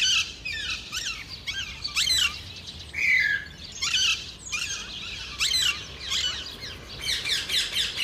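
Rose-ringed parakeets giving shrill screeching calls over and over, with a quicker run of calls near the end.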